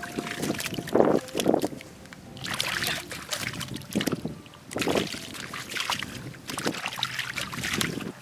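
Water splashing and sloshing in shallow water, in irregular surges about a second apart, as of hands or feet working through a flooded field while fishing.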